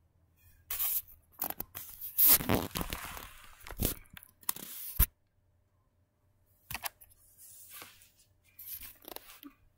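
Close handling noise: rustling and scraping against the microphone for a few seconds, ending in a sharp knock, then after a short pause another knock and softer rustling, as hands move the camera and set out plush toys.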